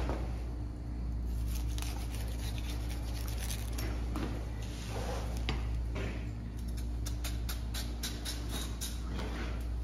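A long tuna knife cutting and scraping through raw bluefin tuna flesh along the rib bones, giving a run of small clicks and wet squishes that come thicker in the second half. A steady low hum runs beneath.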